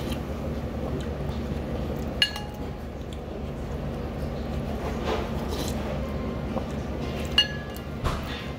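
A plastic soup spoon clinking against a ceramic ramen bowl while broth is scooped. There are two short ringing clinks, about two seconds in and near the end, with softer scraping between them, over a steady low hum.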